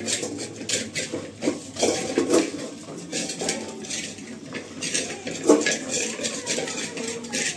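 Dogs eating from stainless steel bowls: the metal bowls clink, clatter and scrape on the tiled floor in irregular bursts as they are licked and pushed about.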